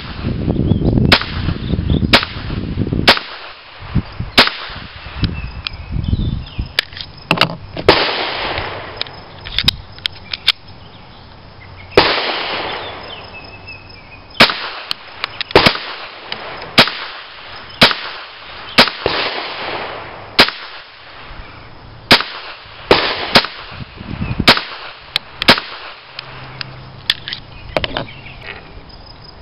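Walther P22 .22 LR pistol being fired: a long string of sharp, loud shots at an irregular pace, roughly one to two seconds apart, several trailing a short echo.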